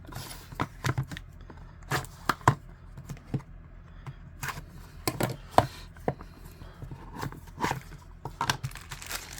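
A folding knife's packaging being opened by hand: the box and its wrapping are torn and rustled, with irregular sharp clicks and handling knocks.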